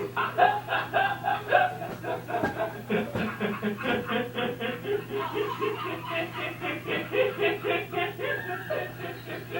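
Rapid, staccato snickering laugh: a fast, even string of short pitched 'heh' sounds, about six a second, over a steady low hum.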